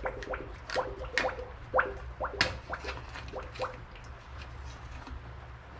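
5W-20 motor oil glugging out of a 5-quart jug into the engine, quick irregular glugs that thin out after about four seconds. A low steady hum runs underneath.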